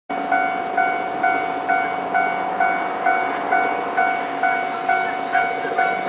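Japanese railway level-crossing warning bell, ringing in an even repeat a little over two strikes a second. It signals that a train is approaching.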